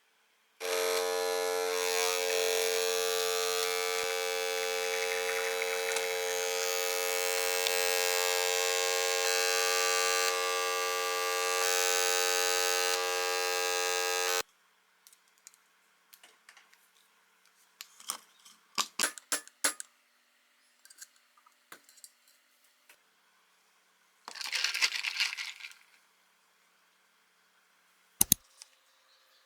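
A fan-driven electric motor runs steadily with a whine over rushing air, starting abruptly just after the start and cutting off suddenly about 14 seconds in. Afterwards there are light clicks and handling noises, a short rush of noise around 25 seconds, and a sharp click near the end.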